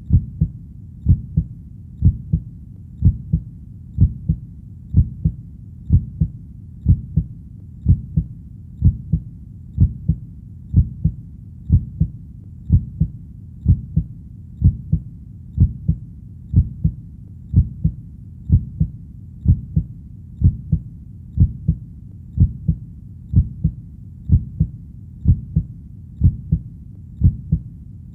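Heartbeat sound beating steadily at about one beat a second, each beat a pair of deep thumps (lub-dub).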